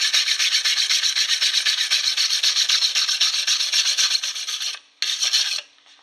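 Hand wire brush scrubbing rust off a mild-steel sheet shovel blade in rapid back-and-forth strokes. The brushing stops about five seconds in, then a short burst follows.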